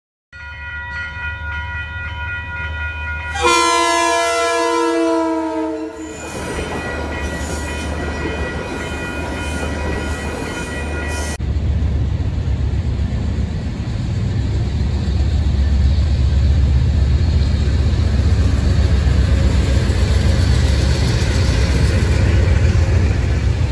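Locomotive air horn sounding a chord that drops in pitch as the train passes, about three and a half seconds in, and keeps blowing at the lower pitch. After a sudden cut near the middle, an Amtrak train is heard rolling across a steel overpass: a steady low rumble that grows louder.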